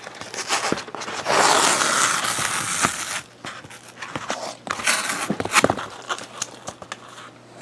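Green FrogTape painter's tape being peeled off a foam wing: a long tearing rasp starting about a second in and lasting about two seconds, followed by scattered crinkles and clicks as the tape is handled.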